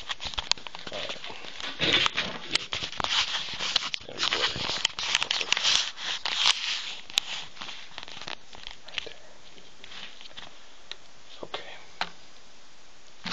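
Close scratching, rustling and sharp clicks from a plastic strip and tape being worked inside a subwoofer's magnet voice coil gap to pick out metal shavings. The sound is dense for about the first seven seconds, then thins to scattered clicks.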